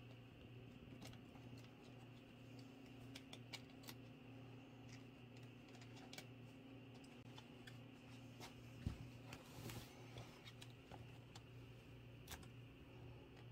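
Near silence over a steady low hum, broken by faint ticks and scratches of tiny kittens' claws and paws on quilted bedding and a plastic crate, with one louder knock about nine seconds in.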